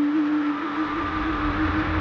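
Steady low horn-like tone from an approaching train, with a deep rumble building in about a second in.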